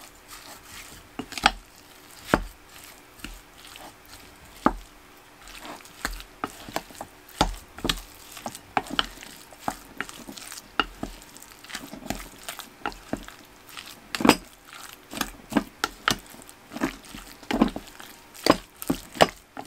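Wooden spoon stirring and mashing a wet ground-pork mixture in a bowl, with irregular knocks and taps of the spoon against the bowl.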